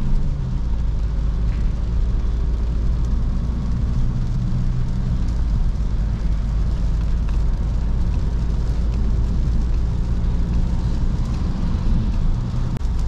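Steady cabin noise of a Volkswagen Passat B8 diesel under way on a wet road in the rain: a constant low rumble of tyres and engine.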